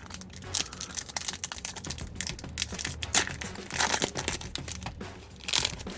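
Plastic foil wrapper of a Pokémon card booster pack crinkling as it is handled and torn open, in irregular crackles with louder bursts about four and five and a half seconds in.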